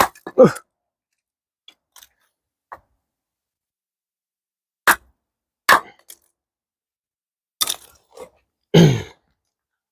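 An axe splitting oak firewood: about six sharp wooden knocks a second or more apart, a pair right at the start and the loudest strike near the end, ringing down into a low thud.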